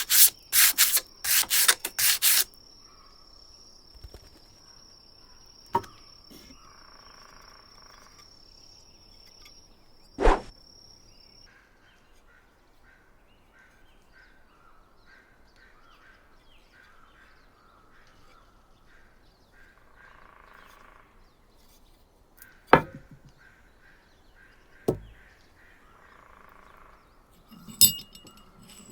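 Hand sanding on wood, rhythmic back-and-forth strokes for the first two seconds or so, then quieter handling with a few single sharp knocks spread through the rest.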